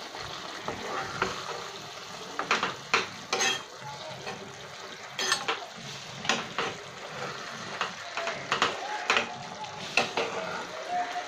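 A spatula stirring and gently turning a thick onion masala with boiled eggs in a kadai. Irregular scrapes and light knocks against the pan sound over a steady sizzle of the gravy simmering.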